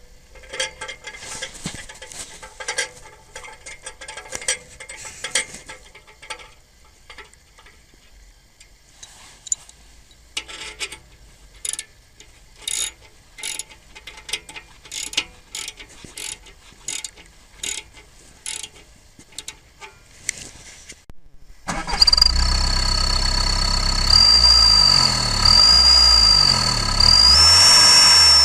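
Scattered clicks and knocks, then a car engine starts abruptly and runs loudly. Over the engine a steady high-pitched whistle from an exhaust-mounted turbo whistler (fake turbo sound) rises a little in pitch as the engine is revved.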